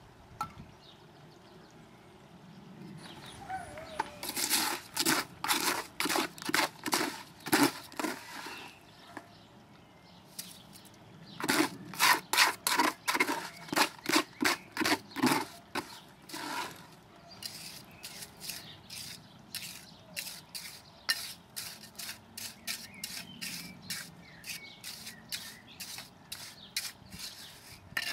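Rhythmic scraping strokes, about two to three a second, of wet mortar being worked across the bottom of a concrete fire-pit basin: two loud runs of strokes, then faster, fainter strokes through the second half.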